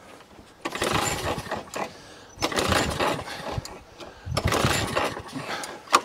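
Masport lawn mower's 190cc Briggs & Stratton flathead engine pulled over on its recoil starter three times on choke, cranking for about a second each pull without catching: a no-spark, no-start fault.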